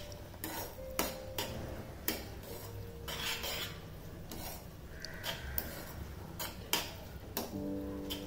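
Steel spoon stirring and scraping cooked grated pumpkin and melted jaggery in a metal kadhai, clinking against the pan at irregular intervals. A few of the clinks leave a short ringing tone.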